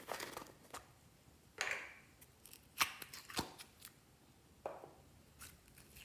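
Close-up hand-handling sounds of slime and the items being mixed into it: a few short rustles and sharp clicks, the loudest clicks about three seconds in.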